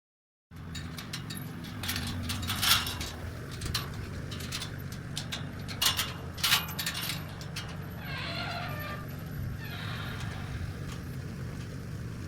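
Steady low rumble of a car driving, heard from inside, with a few sharp clicks and knocks and a short wavering higher-pitched sound about eight seconds in.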